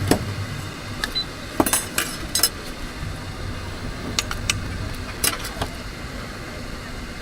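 Scattered sharp clinks and knocks of utensils against dishes and containers as food is served up, about nine in all, over a steady low background hum.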